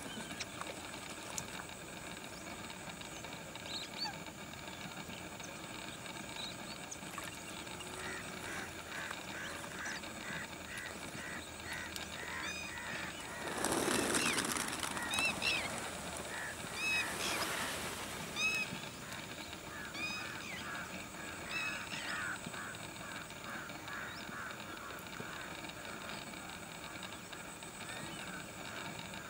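Waterbirds calling: a long run of short repeated calls, with higher, upward-hooked whistled notes mixed in. A loud rush of noise comes in for a few seconds near the middle.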